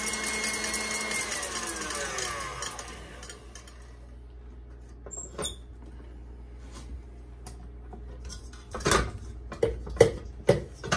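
KitchenAid stand mixer whipping egg whites with a steady motor whine, then switched off about a second in, its whine falling in pitch as the motor winds down over a couple of seconds. The whites have reached stiff peaks. Near the end come a few clicks and metal clanks as the wire whisk and stainless steel bowl are taken off.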